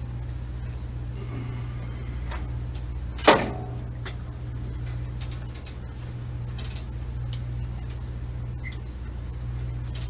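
Steady low drone of an engine-driven Miller welding machine running, with a few faint clicks and one sharp, loud knock about three seconds in.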